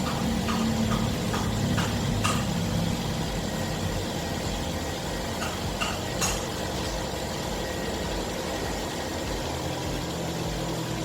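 2008 Nissan Tiida's four-cylinder engine idling steadily just after new ignition coils and spark plugs were fitted to cure a misfire, running well enough for the owner to call it good to go. A few light clicks sound in the first couple of seconds, and another about six seconds in.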